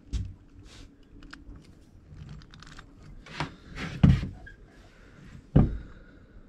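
Hand tools knocking and scraping on metal while working a distributor drive gear off its shaft: several sharp knocks, the loudest about four seconds in, with small clicks and scrapes between them.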